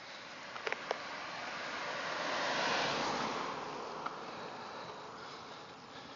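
A car passing by on the road: its tyre and engine noise swells to a peak about three seconds in and then fades away. A few short clicks come just before it, about a second in.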